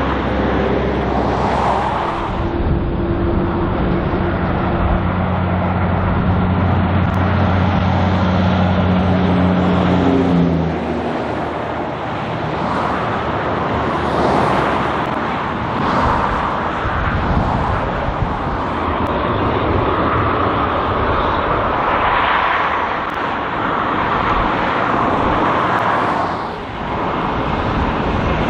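Heavy diesel truck engine pulling steadily, its note rising slightly and then stopping about ten seconds in. After that comes tyre and road noise of passing vehicles, swelling and fading as a car and trucks go by.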